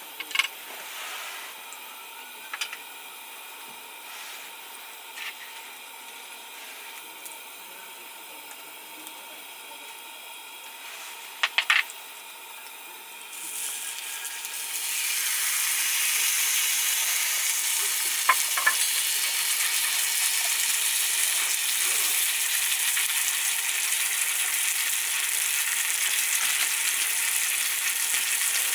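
A few light clicks and clinks, then about halfway through a steady sizzle sets in and keeps going, like food frying in a hot pan.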